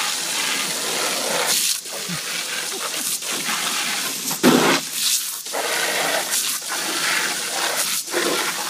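Jet of water from a garden hose spray nozzle splashing steadily into a plastic kiddie pool, broken by several short, louder bursts as a husky lunges and bites at the stream, the loudest about four and a half seconds in.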